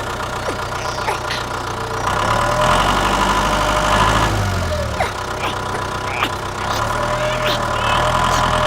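Engine idling steadily, a little louder from about two seconds in, with birds chirping over it.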